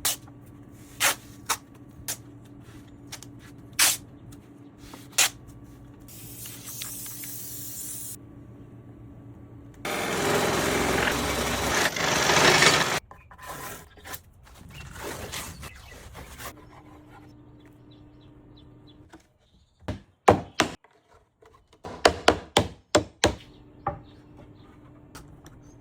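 Hand work on a wooden sign: a string of sharp clicks and knocks with wood rubbing and scraping. A hiss lasts about two seconds around six seconds in, and a louder noisy rush follows for about three seconds from ten seconds in.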